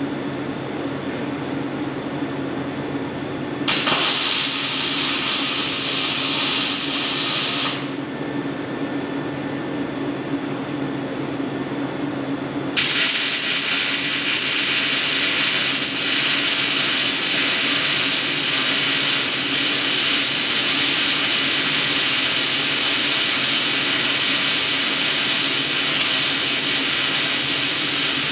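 Arc welding on steel flatbed cross members. A weld of about four seconds comes a few seconds in, then after a pause a long continuous weld starts about halfway through and keeps going, a loud steady hiss over a low steady hum.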